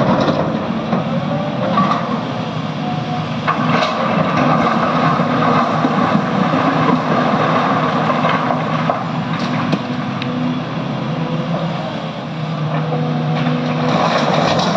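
Excavator's heavy diesel engine running steadily under working load, its pitch wavering a little, with a few faint knocks.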